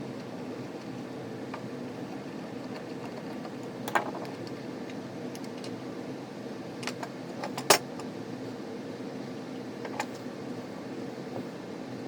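Steady low hum with a few sharp metallic clicks and clinks over it, from small metal parts being handled; the loudest click comes a little past the middle.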